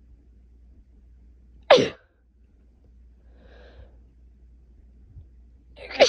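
A woman with a head cold sneezing loudly twice, about four seconds apart, the second near the end, part of a cold-induced sneezing fit.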